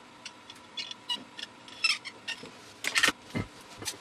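A thin metal shielding can on a radiosonde's RF transmitter board being worked off with a small tool: a string of small metallic clicks and scrapes, with a louder cluster of clicks about three seconds in. The can is press-fitted, not soldered, and comes away stiffly.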